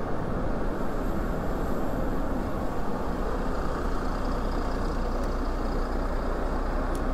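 Steady rush of street traffic and wind noise, heard from a bicycle moving along a city bike lane beside buses and cars.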